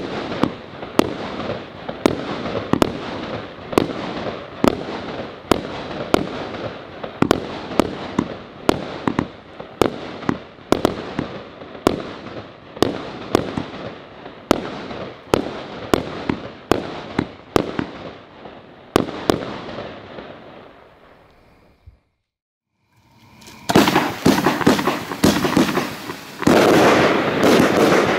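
A 25 mm, 25-shot firework battery firing white strobe stars: sharp launch reports about once a second over a haze of crackling stars, trailing off about twenty seconds in. After a short silence comes a dense, louder crackling hiss of strobe stars from close up.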